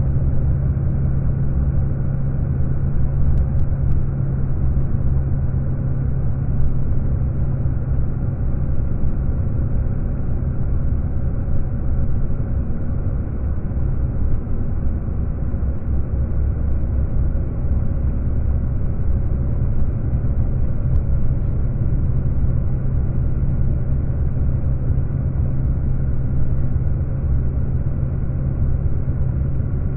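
Car driving along a road, a steady low rumble of engine and tyres with no change in pace.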